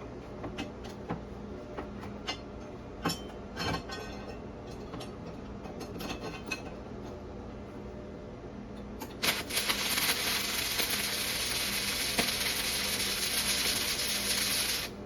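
Scattered clicks and taps, then about nine seconds in a flux-core welding arc strikes. The arc, 0.035 stainless flux-core wire at 70 amps on DC electrode positive, crackles and sizzles steadily for about five seconds and cuts off abruptly. With this setting the bead throws heavy spatter.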